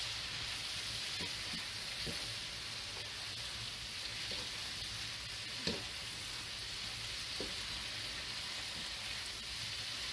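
Collard greens frying in bacon grease in a skillet, a steady sizzling hiss, with a few light knocks of a wooden spoon against the pan as they are stirred.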